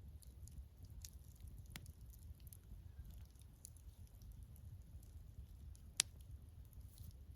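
Wood campfire crackling: small scattered pops and clicks, with one sharp, louder pop about six seconds in, over a low steady rumble.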